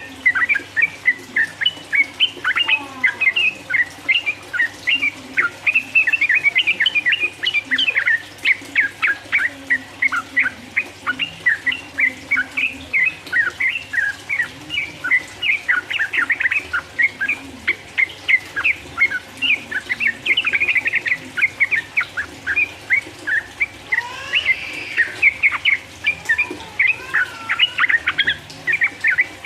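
Yellow-vented bulbul (trucukan) singing in long, rapid runs of short bubbling notes, the fast continuous 'ropel' song used as a lure to rouse other trucukan.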